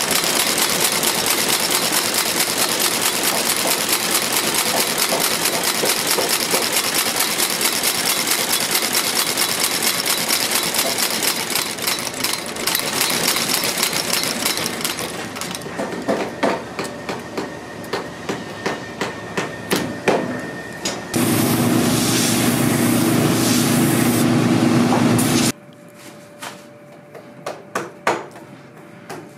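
Outsole stitching machine sewing through a boot's sole and welt: a fast, even mechanical clatter of stitches that breaks up after about fifteen seconds into separate, slowing ticks. Near the end a steadier, lower machine sound runs for a few seconds and cuts off suddenly, leaving light tapping.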